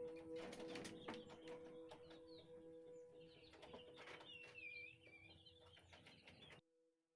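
Faint birds chirping over a steady two-note hum, with a few light clicks. The level fades and the sound cuts off suddenly near the end, leaving only the faint hum.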